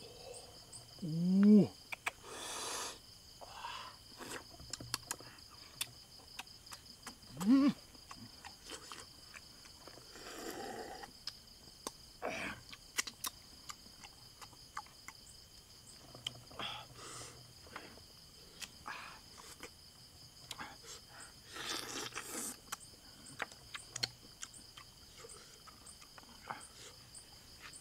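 Steady high chirring of night insects, with small clicks of a bamboo skewer picking at grilled snail shells and eating noises: slurps and chewing. Two short rising mouth sounds stand out, about a second and a half in and again near eight seconds.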